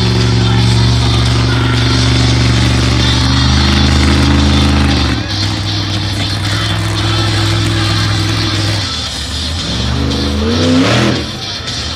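Monster truck engine held at high revs, its pitch stepping down once about five seconds in, then revving up and down in surges near the end as the truck works through wheelies and two-wheel moves.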